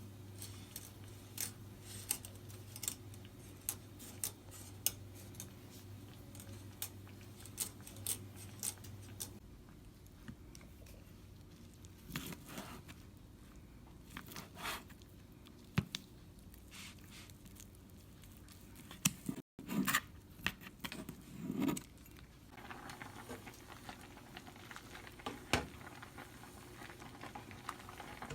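Kitchen handling sounds: scattered clicks, clinks and light knocks of utensils and packaging, over a low hum that stops about a third of the way in.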